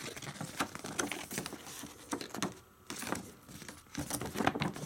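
A folded paper rules sheet being unfolded and handled: irregular crinkling rustles, with a brief pause about halfway through.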